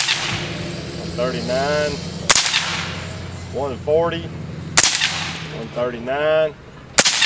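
Three suppressed rifle shots from an AR-15-style carbine fitted with a Liberty Mystic suppressor, about two and a half seconds apart. Each is a sharp crack with a brief echo, and each reads about 139–140 dB on the meter.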